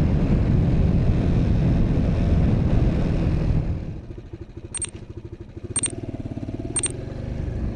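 Motorbike running at speed with heavy wind noise on the microphone, which falls away sharply about four seconds in as the bike slows to a quieter engine idle. Three short high beeps follow, one a second.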